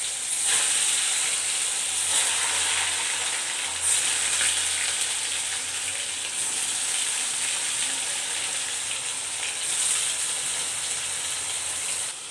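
Paneer cubes sizzling in hot oil in a kadai, the hiss surging each time more pieces are dropped in.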